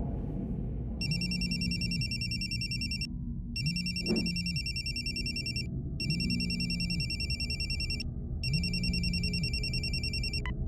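Cordless landline telephone ringing with an electronic trilling ring: four rings of about two seconds each with short gaps, the last stopping near the end as the call is answered. A steady low drone runs underneath.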